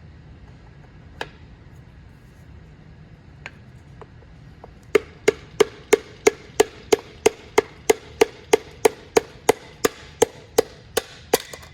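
Hammer blows on a wooden block, driving a piston with its rings down into an Alfa Romeo 164 24V cylinder liner: a couple of single knocks, then about halfway through a quick, even run of about twenty taps, roughly three a second, each with a short ring, until the piston goes in.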